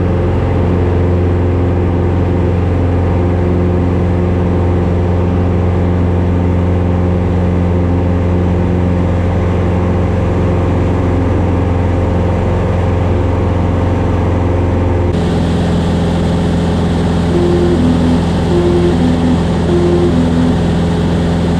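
Van's RV-14A light aircraft's piston engine and propeller running steadily at power, dropping slightly in pitch about 15 seconds in. Near the end, a short two-note electronic beep sounds three times over it.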